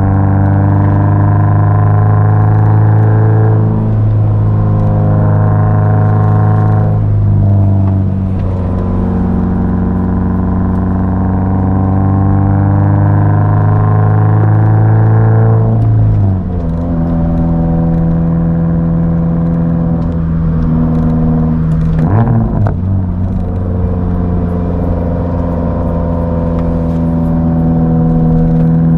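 Subaru BRZ's flat-four boxer engine pulling through the gears on a manual gearbox. The engine note climbs slowly and dips at each upshift, about four, seven and sixteen seconds in, then holds a lower, steadier note. There is a brief rough patch about twenty-two seconds in.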